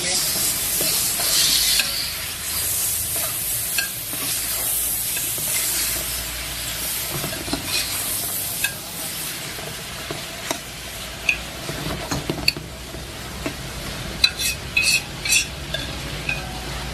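Bone-in beef sizzling as it fries in hot ghee with onions in a large metal pot while it is stirred with a long metal ladle. The sizzle is loudest in the first couple of seconds. Near the end the ladle knocks and scrapes against the pot several times.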